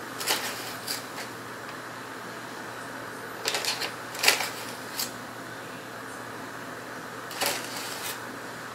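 Plastic zip-top bag crinkling and a spatula scraping as flour is scooped out of the bag. The sounds come in short bursts: just after the start, around three to five seconds in, and again about seven and a half seconds in.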